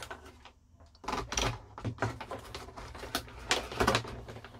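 Handling noise from working on a record deck's chassis: a quick run of clicks, light knocks and rustles as cables and parts are moved about, starting about a second in.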